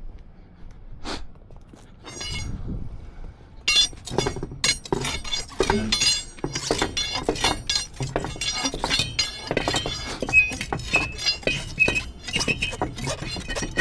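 Metal clinking and clanking as a bus wheel is fitted onto the hub studs and lug nuts are put on: a few separate clicks at first, then a dense run of rapid clinks from about four seconds in, some ringing briefly.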